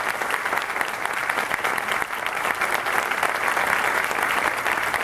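Theatre audience applauding steadily: dense, continuous clapping from many hands.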